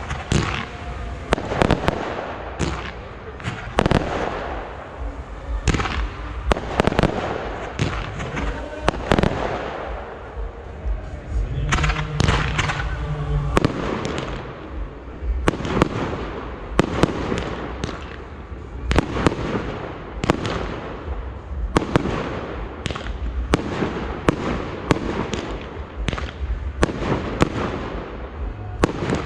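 Fireworks display: a long, irregular run of loud shell bursts and bangs, several a second at times, each followed by a short echo.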